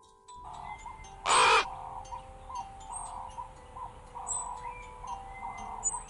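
A crow gives one loud, harsh caw about a second and a half in. Softer bird calls and high chirps carry on behind it.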